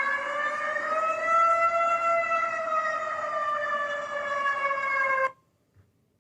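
Malaysia's emergency alert siren: one loud, wailing siren tone with several overtones that rises over about the first two seconds, then slides slowly down and cuts off suddenly a little over five seconds in.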